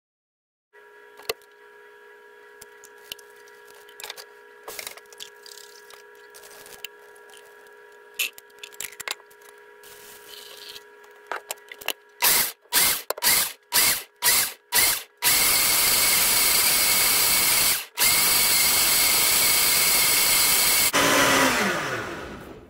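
Ninja Chef countertop blender grinding soaked almonds and water into almond milk: after some light clicks and taps, it pulses about seven times, then runs loud and steady at high speed and winds down near the end with a falling whine.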